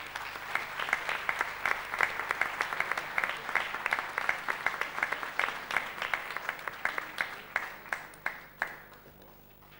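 A small group applauding with close, crisp hand claps that thin out to a few last claps and stop near the end.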